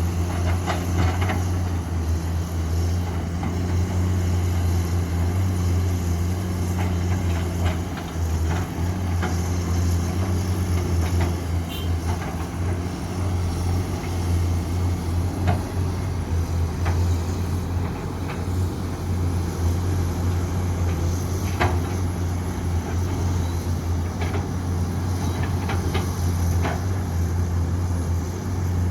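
Komatsu PC210 excavator's diesel engine running at a steady speed under work, with a strong low hum and a few sharp knocks and clanks scattered through.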